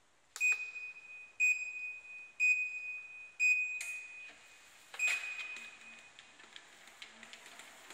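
Electric treadmill's control panel beeping: four short, high beeps about a second apart, then a longer beep about five seconds in, as the treadmill is started.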